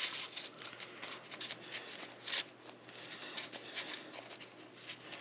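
Faint rustling and light clicks of a disposable-gloved hand scooping sticky crushed-wafer and pecan dough from a glass mixing bowl, with one sharper click a little over two seconds in.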